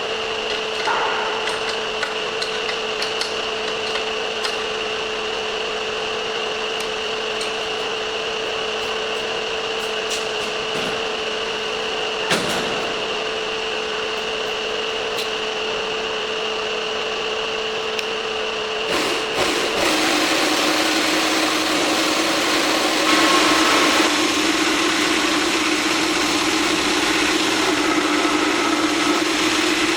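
Belt cylindrical sander's 1.5 kW motor and pneumatic sanding drum running with a steady hum and a single sharp knock. About two-thirds in, after a few clicks, the pitch drops and a louder rushing noise sets in and holds.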